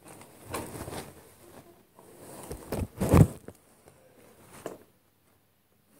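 Thin plastic bag rustling and crinkling as it is handled, in two spells, the louder one about three seconds in, followed by a single light click.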